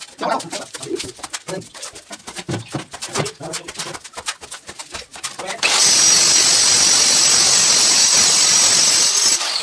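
A power tool runs with a steady high whine for about four seconds, starting suddenly just past halfway and cutting off near the end. Before it, short scrapes and slaps come from a steel trowel scooping sand-cement mortar from a heap and throwing it onto a wall.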